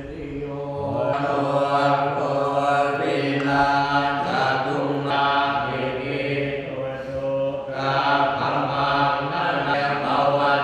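Buddhist monks chanting in Pali during an ordination ceremony: a steady, drawn-out group recitation held on even pitches, with brief pauses for breath.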